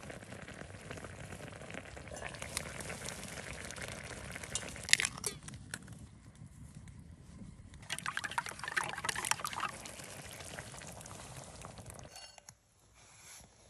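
Miso-sauced pork cutlet simmering in broth in a small cast-iron skillet over charcoal, a steady bubbling hiss. A few sharp clicks come about five seconds in and a short burst of clatter a few seconds later, as an egg is readied and poured over the cutlet.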